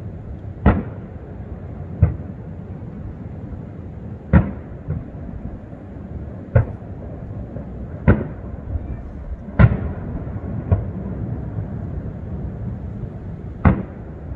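Aerial fireworks shells bursting, about ten sharp booms at uneven gaps of one to three seconds, over a steady low rumble.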